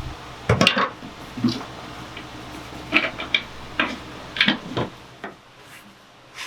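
Irregular knocks and clatter of hard objects being handled and set down, about eight in all, over a low steady hum.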